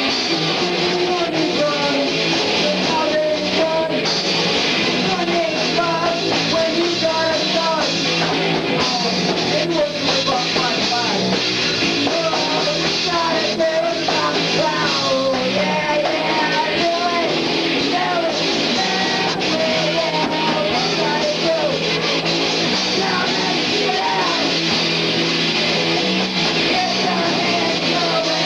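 Live rock band playing, electric guitar over the full band with singing, recorded from among the audience in a small club.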